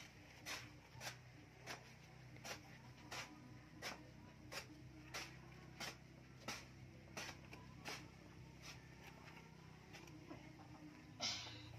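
Hoe blade chopping into dry, cloddy earth: faint sharp strikes about one and a half a second, thinning out later, then one louder scrape near the end.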